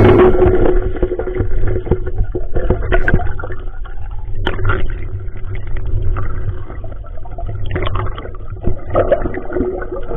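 Muffled underwater noise heard through a diving camera's housing: a steady low rumble with many scattered clicks and knocks, as the speared fish and the spear shaft knock against the reef.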